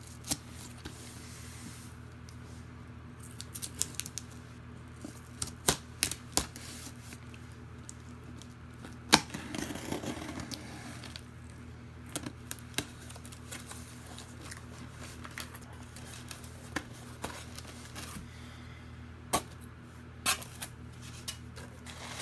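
Shipping box being opened and unpacked by hand: scattered clicks, snips and rustles of tape and packaging, over a steady low hum.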